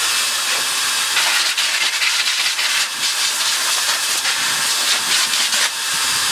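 Compressed-air airline blowing dust out of a Dyson V6's inner cyclone cones: a continuous loud hiss that dips briefly near the end and then carries on.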